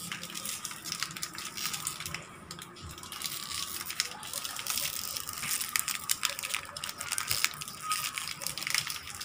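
Thin plastic snack wrapper crinkling and tearing as a packaged donut is pulled out of it, a steady run of small crackles.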